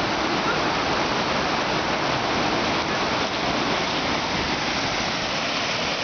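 Steady rush of white water from a waterfall and its swollen mountain stream in heavy seasonal flow.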